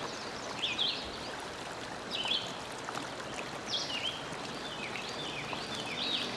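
Little River's rapids running steadily over rocks, with a songbird giving short, high, falling chirps in small groups every second or so.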